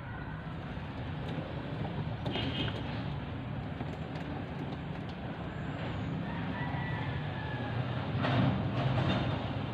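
Low steady rumble of traffic that swells about eight seconds in.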